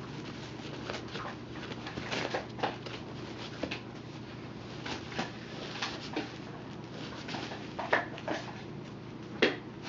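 Month-old puppies padding and scrabbling about on puppy pads and blankets: a run of small scratches, taps and rustles, with a few louder sharp sounds near the end.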